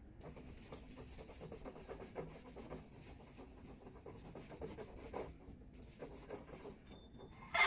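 Soft, repeated rubbing strokes of wood polish being buffed by hand into a finished wooden surface.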